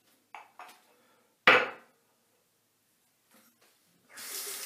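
A couple of light taps, then one sharp knock of a hard object set down on a countertop. Near the end a water tap starts running with a steady hiss.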